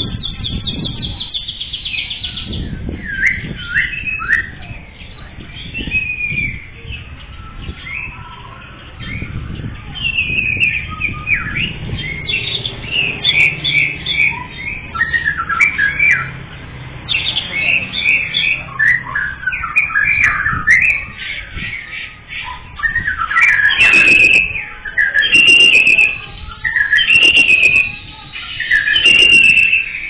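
Caged songbird singing a long, varied run of chirps and whistles, with louder repeated phrases over the last several seconds.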